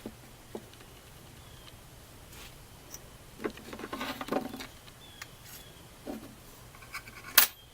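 Small clicks and scrapes of a car's door-chime module being handled and taken apart by hand, with a spell of rustling and scraping about halfway through and one sharp click near the end.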